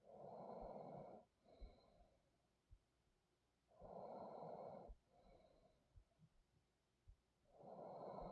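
A sleeping person's slow, deep breathing close to the microphone: three breath cycles about four seconds apart, each a louder breath of about a second followed by a shorter, softer one. Faint low knocks come here and there between breaths.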